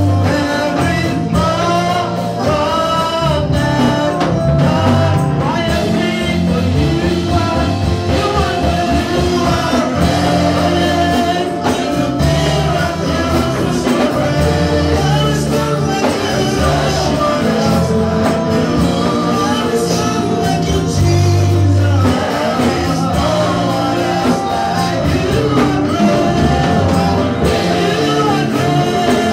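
Live amplified gospel praise music: a woman lead singer sings into a microphone over backing vocalists and a band with electric guitar, a steady bass line running under it.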